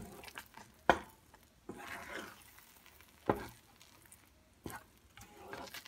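Wooden spatula stirring thick rava kesari in a pan, with scraping, a light sizzle and about four sharp knocks of the spatula against the pan. The kesari has cooked down to the stage where it gathers into a mass without sticking to the bottom.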